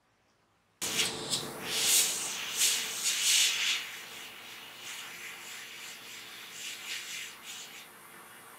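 Airbrush spraying paint: a hiss of air that starts abruptly about a second in, surges unevenly for a few seconds, then settles to a steadier, quieter hiss.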